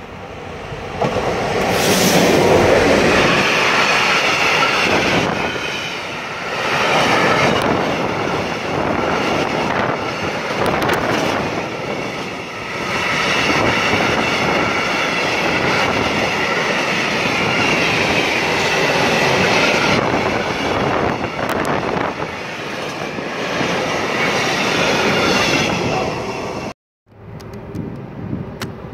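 Freight train of hopper wagons passing close by behind its locomotive, with a steady loud rolling rumble, wheel clatter and squealing from the wheels. Near the end the sound cuts off abruptly.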